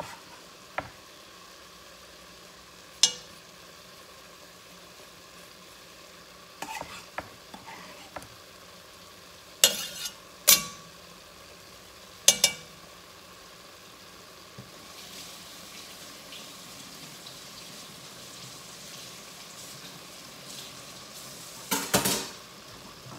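Ground meat sizzling faintly in an enameled cast-iron Dutch oven while it is stirred with a wooden spoon. Several sharp clacks of utensils against the pot come through, the loudest about ten seconds in, around twelve seconds and near the end.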